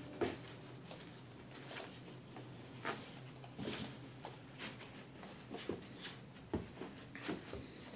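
An adult Vizsla and a Vizsla puppy playing on carpet: scattered soft taps and thumps of paws and bodies at irregular intervals.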